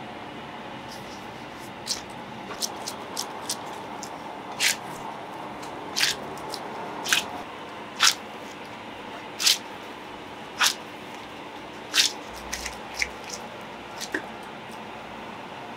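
Bread dough being kneaded by hand on a floured counter: short squishing slaps, about one a second, over a steady hiss of kitchen background.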